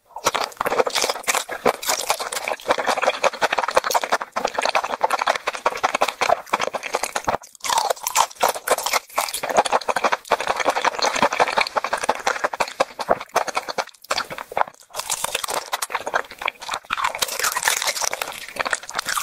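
Close-miked eating of raw crab: crab shell and flesh crunching and crackling between the teeth, with wet sucking and chewing sounds. It runs densely, broken by a few brief pauses.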